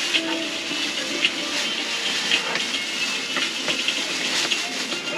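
Oil sizzling in a frying pan, a steady hiss with many small crackles, under faint background music.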